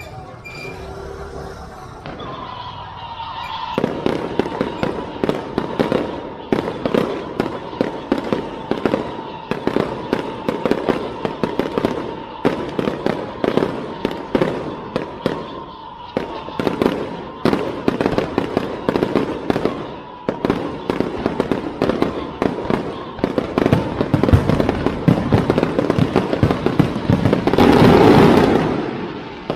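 Fireworks show: dense, rapid cracks and bangs that start about four seconds in and run on continuously, building to a loudest, densest burst near the end. A steady high tone runs under the first two-thirds.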